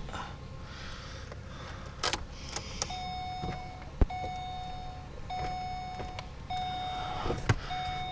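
Electronic warning beeper sounding a steady series of long beeps, about one a second, starting about three seconds in. Several sharp metallic knocks come in between.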